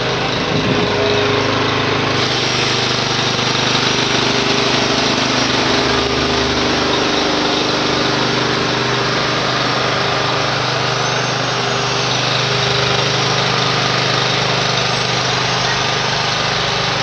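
Small engine, likely a portable generator, running steadily with a constant low hum, and a hissing noise that grows louder about two seconds in.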